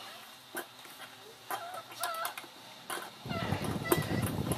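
Steel open-end wrenches clicking against the bolts of a salon chair's seat plate as they are tightened, with a few short bird calls in the background. A steady rushing noise starts about three seconds in and is louder than the rest.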